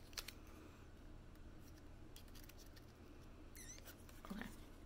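Faint scattered clicks and scratches of fingers opening a small cardboard box, with a short squeak near the end.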